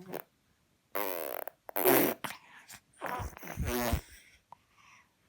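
A baby farting several times in a row: short buzzy farts about a second in, a louder one at about two seconds, and a longer one from about three to four seconds.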